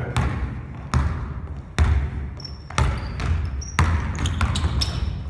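A basketball being dribbled hard on a hardwood gym floor, about one echoing bounce a second during a one-on-one drive, with brief sneaker squeaks in between.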